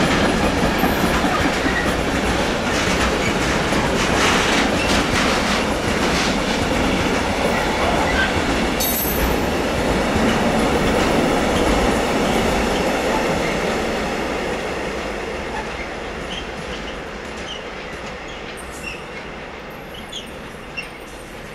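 Long freight train rolling past, its wheels clattering over rail joints, with a brief high wheel squeal about nine seconds in. The noise then fades steadily as the train moves away.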